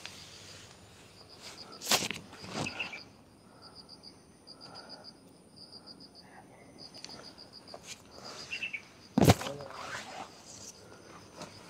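Insects chirping in short, evenly pulsed high bursts, over which leaves and stems rustle and brush against the camera a few times; the loudest brush comes about nine seconds in, as the camera presses against a banana plant.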